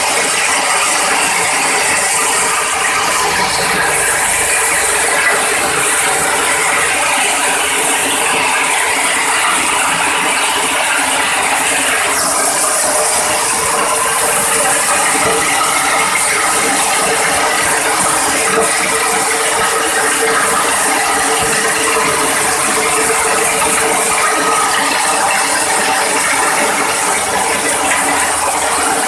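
Iron hammer mill for grinding grain into flour, running steadily: a loud, continuous mechanical clatter with a steady hum under it.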